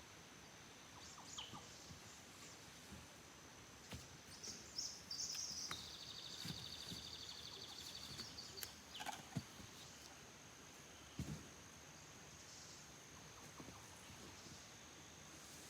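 Quiet outdoor ambience: a steady high-pitched insect drone runs throughout. A bird gives a fast trill for about two seconds near the middle, with a few scattered chirps and soft knocks.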